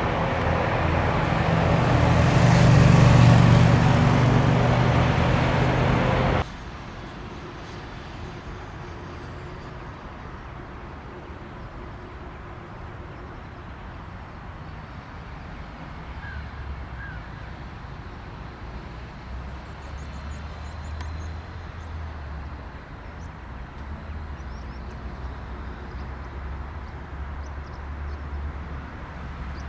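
Bombardier Challenger 350 business jet's turbofan engines running loud as it comes in to land, swelling to a peak about three seconds in. The sound cuts off suddenly about six seconds in, leaving a much quieter low jet rumble.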